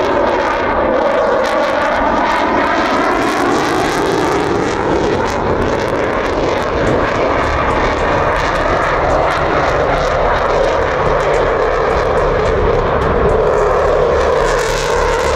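RAF Eurofighter Typhoon's twin Eurojet EJ200 turbofan engines at display power as the jet flies past: loud, continuous jet engine noise, with a sweeping, phasing tone in the first couple of seconds as it passes.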